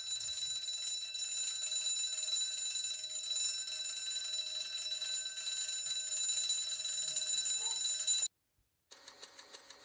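An electric alarm bell ringing continuously with a shrill metallic tone for about eight seconds, then cutting off abruptly. After a short pause a quieter, rapidly pulsing ringing begins, about six pulses a second.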